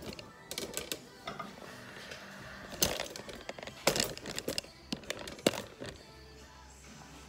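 A string of sharp clicks and knocks from parts and tools being handled at a workbench, the loudest about three, four and five and a half seconds in, over faint background music.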